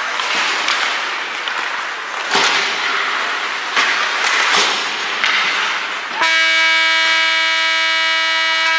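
Ice rink noise with several sharp clacks of sticks and puck, then, a little over six seconds in, an arena horn starts suddenly and holds a steady, loud blare.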